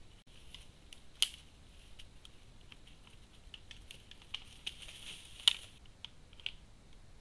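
Two whitetail bucks sparring, their antlers clicking and clacking together in irregular light taps, with two sharper cracks, about a second in and about five and a half seconds in.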